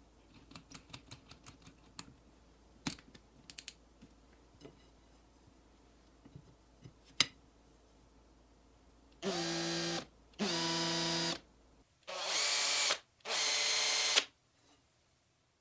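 Cordless drill's keyless chuck clicking as it is tightened by hand, with a few light knocks. In the second half the drill motor runs in four short bursts of about a second each, spinning a wooden bar in a dowel-making jig.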